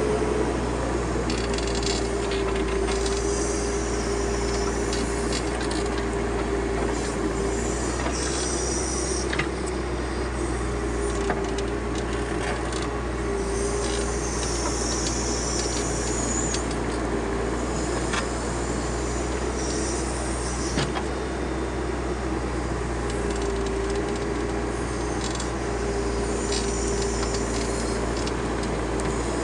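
Backhoe loader's diesel engine running steadily under load, with a whine that comes and goes and repeated scraping and rustling as soil is moved.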